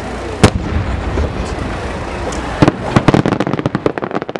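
Aerial firework shells bursting: one sharp bang about half a second in over a low rumble of echoes, then from a little past the middle a rapid string of cracks as a shell's many small sub-bursts go off.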